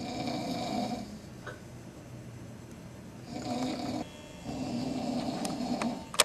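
A drunk man passed out asleep, snoring heavily: three loud, rasping snores, the last one the longest. A sharp click sounds just at the end.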